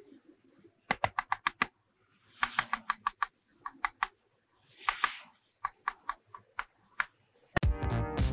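Rapid runs of sharp clicks, several a second in short bursts, with soft breathy sounds in between; music comes in near the end.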